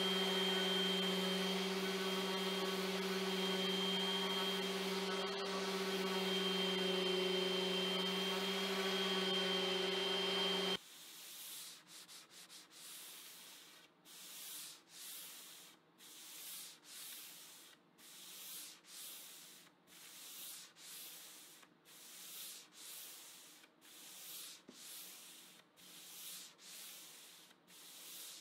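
Electric random orbital sander running steadily on a wooden board, a constant motor hum with a high whine. It stops abruptly about eleven seconds in. Then hand sanding with a sanding block: hissing strokes back and forth about once a second.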